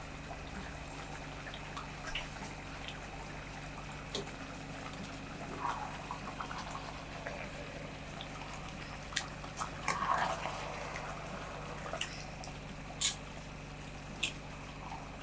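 Yogurt being spooned into a pot of simmering chicken masala: soft wet plops and drips with scattered sharp clicks of a spoon against the pot, over a steady low hum.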